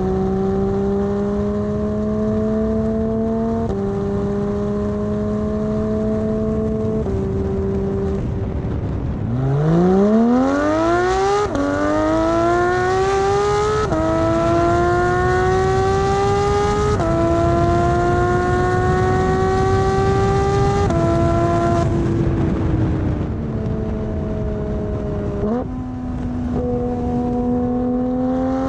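Porsche 911 GT3 RS naturally aspirated 4.0-litre flat-six, breathing through a straight-from-the-race-car Carrera Cup exhaust, accelerating through the gears. Its pitch climbs and falls back at each upshift. About a third of the way in there is a hard pull from low revs, followed by four quick upshifts. The engine then eases off and starts pulling again near the end.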